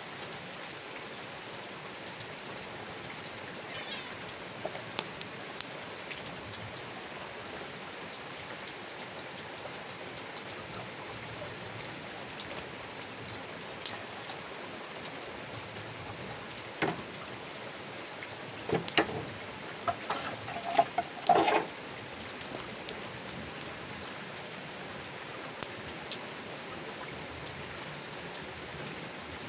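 Steady hiss of rain falling around a wood fire burning in a stone hearth, with scattered crackles and pops from the burning logs. A brief cluster of louder pops comes about two-thirds of the way through.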